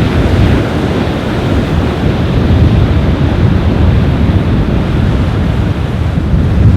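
Strong wind buffeting the microphone in a steady low rumble, over the wash of surf on a beach.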